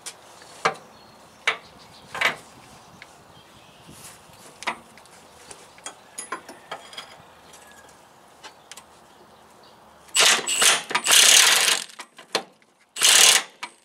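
Metal clinks and taps as a socket is fitted onto a 15/16 torsion-rod nut, then a Milwaukee half-inch cordless impact wrench hammering in two bursts near the end, the first about two seconds long. The nut does not break loose under the half-inch impact.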